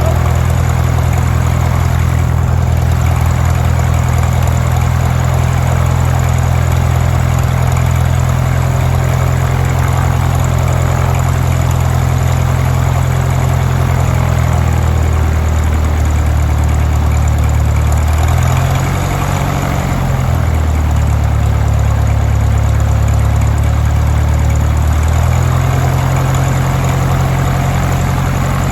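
Lycoming O-320 four-cylinder aircraft engine and propeller running steadily on the ground at its first start. Its speed shifts a few times in the second half, dropping and then picking up again.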